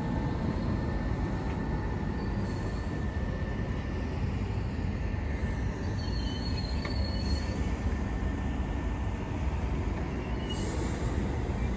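Southeastern Class 395 Javelin electric multiple unit running slowly into the platform with a steady low rumble, and a brief high-pitched squeal about six to seven seconds in.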